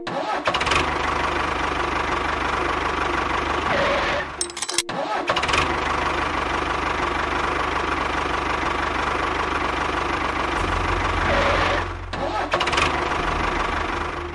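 An engine running steadily, with a short break about five seconds in before it carries on.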